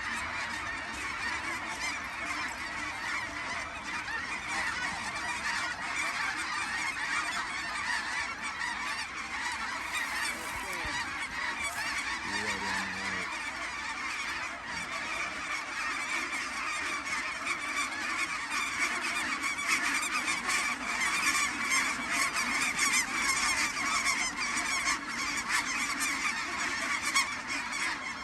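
A large flock of snow geese calling: a continuous din of many overlapping high honks and yelps that grows louder in the second half as the birds come in.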